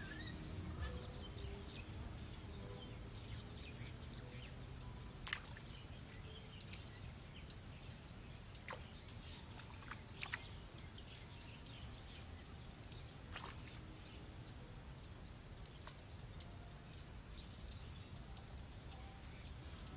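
Faint outdoor ambience: a low steady rumble with scattered short bird chirps. The clearest chirps come about five, ten and thirteen seconds in.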